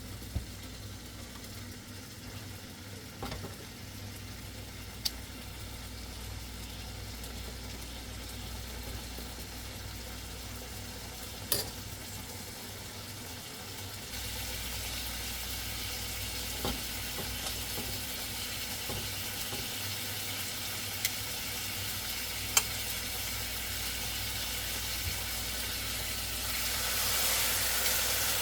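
Marinated chicken sizzling in a hot pan. The hiss grows louder about halfway through and again near the end, with a few sharp clicks of a utensil against the pan.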